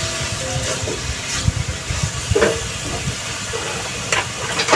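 Chicken pieces sizzling in hot oil in a stainless steel wok, a steady hiss, with a few sharp scrapes and knocks from a silicone spatula stirring them.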